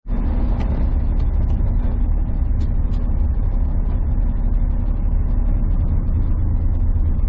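Steady low drone of a semi truck's engine and road noise, heard from inside the cab while driving, with a constant hum and scattered light ticks.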